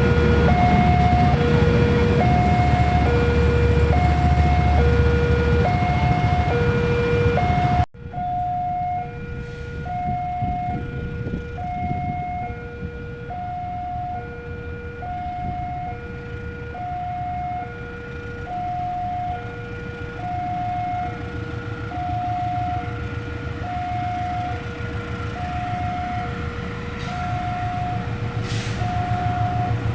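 Railway level-crossing warning alarm sounding a steady alternating two-tone chime, high then low, repeating about once every couple of seconds. A heavy low rumble under it cuts off abruptly about eight seconds in, leaving the alarm alone.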